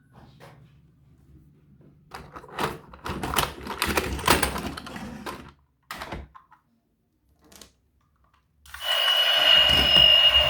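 Rapid clicks and rattles of plastic toys and packaging being handled. Near the end, a loud steady noise with a high whistle-like tone starts up suddenly.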